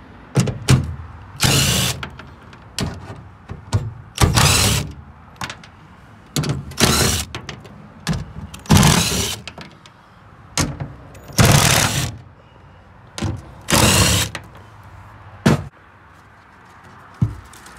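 Cordless impact driver with a socket, hammering in a series of short bursts under a second long as it backs out the bolts holding a steel engine access panel in a truck bed floor, with a few sharp clicks between the bursts.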